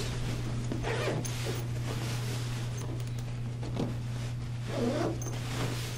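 Zipper on a fabric pet-bed cover being pulled closed in a few short rasping pulls, with fabric rustling, over a steady low hum.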